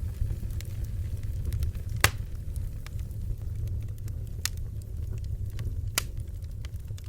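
Bonfire crackling: wood popping in sharp snaps over a steady low rumble of the flames, with two louder pops about two and six seconds in.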